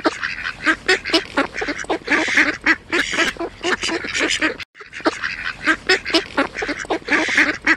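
A flock of ducks, mostly mallards, quacking over and over at close range in a dense chorus of short calls, with a brief break about halfway.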